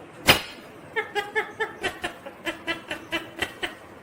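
Indian ringneck parrot giving a quick run of short, laugh-like chuckling notes, about five a second, after a single sharp click.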